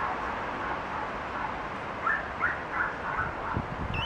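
Steady outdoor background noise, with a run of short, high animal calls starting about two seconds in and a sharper rising squeak near the end.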